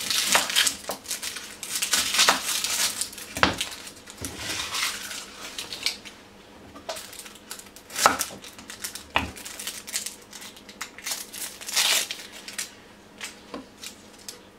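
Red onions being peeled and cut on a chopping board: papery skins crinkling and tearing off, with sharp knife knocks and clicks on the board, busier in the first half.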